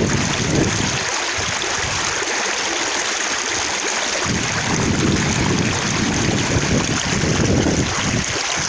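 Running water splashing, with droplets spattering in a steady rushing hiss. A deeper rumbling surge under it fades about a second in and comes back about four seconds in.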